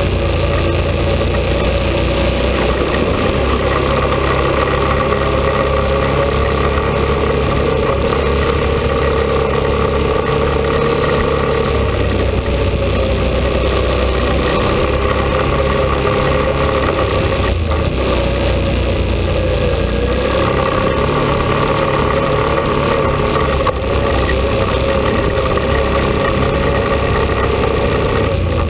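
ATV engine running steadily while riding a rough dirt trail, its note shifting a couple of times with the throttle.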